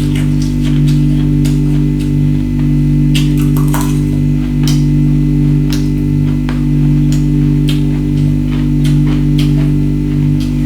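Steady background music, guitar-like, with sharp crunches of ice being bitten and chewed scattered through it.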